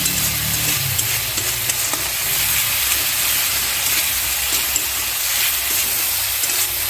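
Spice paste (masala) sizzling in hot mustard oil in a metal kadai, with a metal spatula stirring and scraping it steadily. The masala is being fried down until the oil separates from it.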